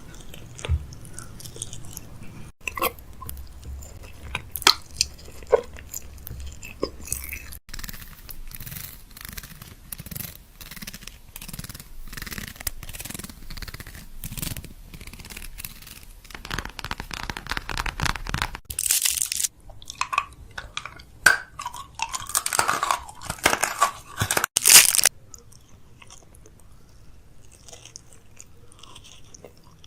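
Fridge restocking: plastic packaging crinkling and rustling, with containers and items set down onto shelves in quick clicks and clinks. It comes as several short clips, each cut off sharply.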